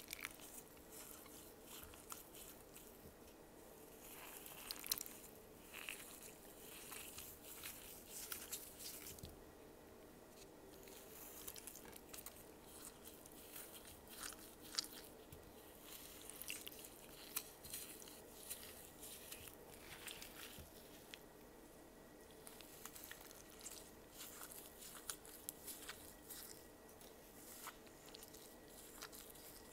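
Damp floral foam coated in paint being squeezed and crumbled by hand: faint, irregular crunching and crackling with soft squishes, in clusters with short lulls.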